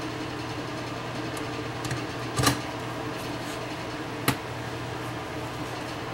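Two sharp clicks, about two and a half seconds in and again near four seconds, of a screwdriver knocking against the receiver's metal chassis, over a steady low hum.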